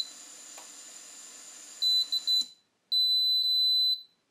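Miniquad's brushless motors spinning at idle with a faint steady hum. A few short beeps sound, and the hum stops about two and a half seconds in. Then the quad's piezo buzzer gives one loud, steady, high beep lasting about a second: the failsafe has triggered after the radio was switched off.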